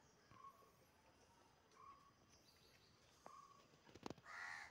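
Near silence outdoors, broken by a few faint short chirps and, near the end, a louder animal call.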